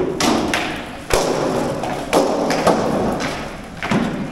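Armoured sword fighting: about half a dozen sharp hits as swords strike a round shield and plate armour, each with a short echo of the large hall.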